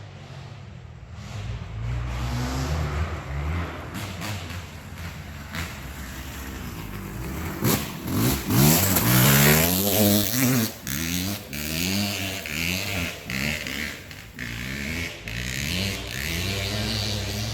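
Kawasaki 250 motocross bike engine revving hard, its pitch repeatedly rising and falling with throttle and gear changes, loudest about halfway through.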